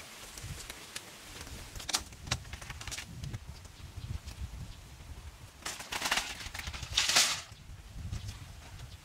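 Bamboo poles and woven bamboo panels being handled, with scattered sharp clacks and knocks and a loud rustling scrape about seven seconds in.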